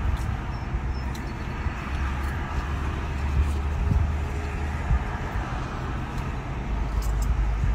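Inside a stationary car, an idling engine makes a steady low hum with an even hiss over it, and a few faint short clicks.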